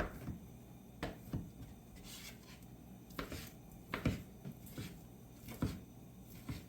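Kitchen utensils being handled: irregular knocks and light clatter of a knife, cutting board and dishes, one every half second to a second or so.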